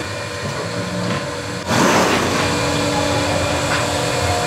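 Machine motor running with a steady hum. It jumps louder with a rush of noise about two seconds in, then carries on as a steady hum with a couple of held tones.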